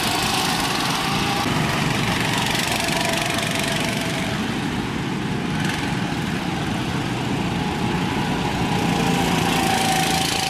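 Small petrol go-kart engines running steadily on the track, a lawn-mower-like buzz whose pitch shifts a little as the karts speed up and slow down.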